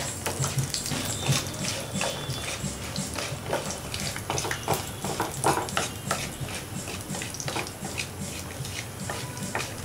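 Peanuts, cashews, mustard seeds and dal frying in hot oil in a nonstick pan, crackling with irregular pops, while a wooden spatula stirs and scrapes through them.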